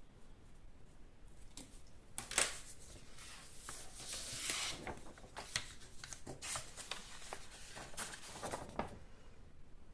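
Pencil scratching across paper in irregular strokes, with rustling of the sheet, from someone drawing.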